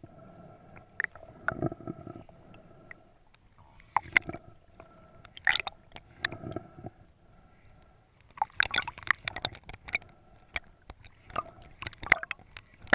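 Underwater sound picked up through a GoPro's waterproof housing: irregular gurgling, clicks and short crackles, thicker in the second half, over a faint steady hum.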